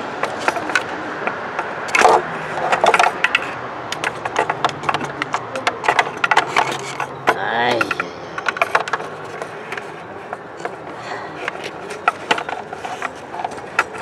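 Irregular clicks, taps and scrapes of a test light's probe and cord being handled and touched against metal parts in a car's engine bay, denser and louder in the first half.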